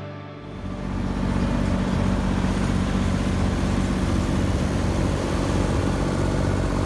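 Vintage tractor engines running at road speed, a grey Ferguson tractor passing close alongside; a steady, even engine beat that swells up over the first second.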